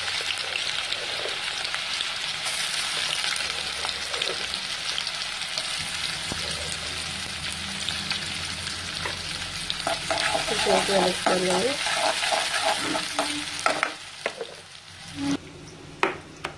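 Chopped onions sizzling steadily in hot oil in a steel kadai, with a few seconds of a pitched background sound over it about ten seconds in. The frying stops near the end, followed by a few knocks of a pestle in a stone mortar.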